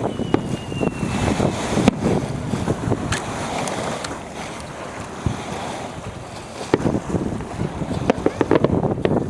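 Strong wind buffeting the microphone, with fireworks banging and crackling through it, several reports coming in quick succession near the end. A thin falling whistle fades out in the first second or so.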